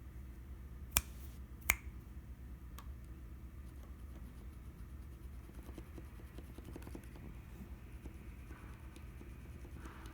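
Keyboard switches with Cherry MX Silent Red stems in Gateron housings being pressed. There are two sharp clicks about a second in, a weaker one shortly after, then scattered faint, soft taps over a low hum.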